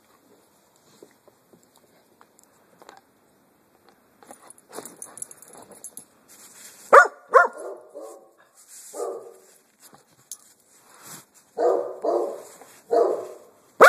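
Basset hound–sheltie mix dog barking in short, sharp barks. After a quiet start with faint clicks, two quick barks come about halfway through, one more a couple of seconds later, then a run of four near the end.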